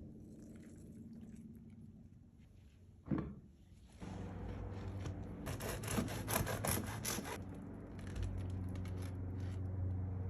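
Baked sourdough focaccia being sawn through with a knife, its crisp crust crackling and scraping in a dense run of crunches about halfway through.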